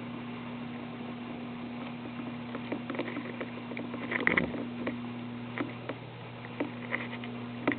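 A sleeping man snoring, with a louder breath about four seconds in and again near the end. Throughout there is a steady low electrical hum and small scattered clicks.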